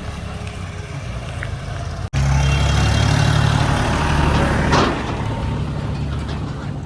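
A heavy diesel engine of earth-moving machinery running steadily under work. The sound cuts out for an instant about two seconds in and returns louder, with a short rush of noise a little before five seconds.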